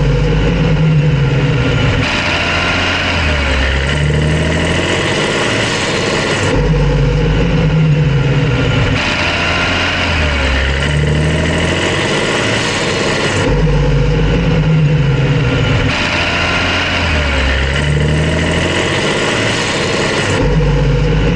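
BMW B58 3.0-litre turbocharged straight-six running and being revved, its engine note rising and falling in a cycle that repeats about every seven seconds. A chirping noise comes with it under load, from inside the cabin more like a ticking; the owner has ruled out injectors, manifold bolts, belt and tensioner, lifters and plugs, and thinks it could even be normal.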